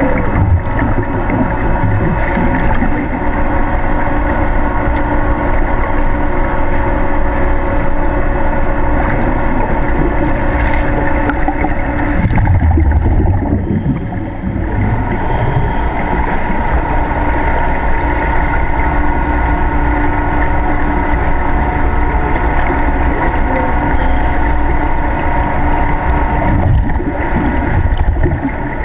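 Steady mechanical hum heard underwater in an aquarium tank, from the tank's pumps and filtration, holding several constant tones over a low rumble. About halfway through, the higher tones fade and a deeper rumble rises for a couple of seconds.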